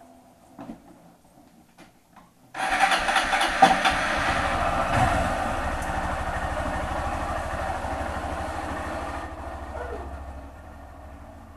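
Motorcycle engine starting abruptly about two and a half seconds in and running steadily, then growing fainter near the end as the bike moves off.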